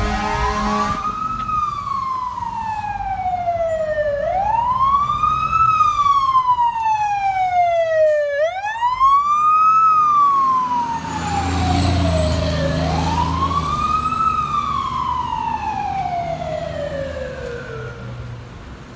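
Fire engine siren wailing, each cycle rising quickly and then falling slowly, about every four seconds, over the truck's engine. The engine swells as the truck passes and fades as it drives away. A steady horn blast sounds for about the first second.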